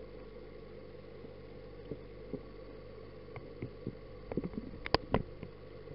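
Steady hum of an aquarium pump motor, heard through a submerged action camera's waterproof housing. Scattered knocks and taps on the housing come from about two seconds in and bunch together near the end.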